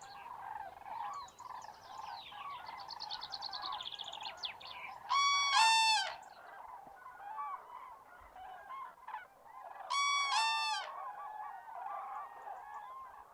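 A flock of common cranes calling: a steady murmur of many overlapping calls, with two loud, clear multi-note calls about five and ten seconds in. Fainter, higher-pitched chirping runs through the first five seconds.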